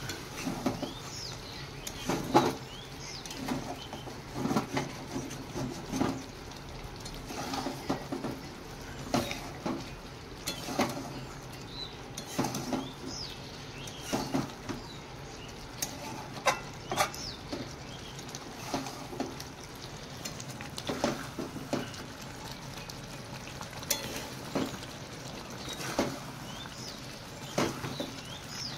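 Metal spatula stirring a thick chicken curry in a steel kadai, scraping and knocking against the pan in irregular strokes every second or so, over a steady low sizzle.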